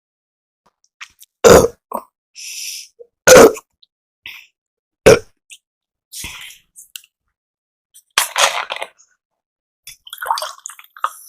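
Person burping after drinking carbonated cola: three short, loud burps about two seconds apart, with quieter breathing and mouth noises between and after them.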